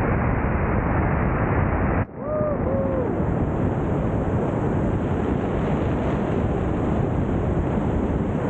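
Airflow rushing loudly and steadily over a body-mounted action camera's microphone during wingsuit flight. About two seconds in, the rush briefly dips and changes tone, and two or three short pitched tones sound soon after.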